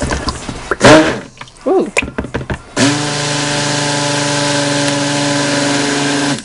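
Hand-held 200-watt immersion (stick) blender churning soap batter. It runs in a few short bursts, its pitch swooping up and down, then runs steadily from about three seconds in until it cuts off near the end. This is blending the batter thicker so the mint flakes stay suspended.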